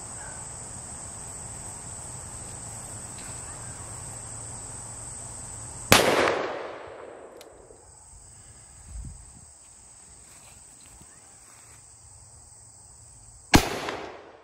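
Two shots from a Smith & Wesson 500 revolver, a .500 S&W Magnum, about seven and a half seconds apart, each ringing out briefly after the crack. A steady high drone of insects runs behind them.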